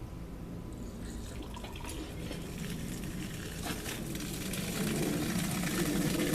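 Water rushing out of the newly connected main water line, growing steadily louder, flushing dirt out of the pipe.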